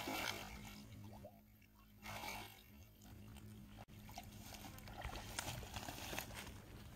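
A hooked rohu splashing and thrashing at the surface in shallow water, with a burst of splashing as it starts and another about two seconds in, then smaller sloshing and crackling splashes.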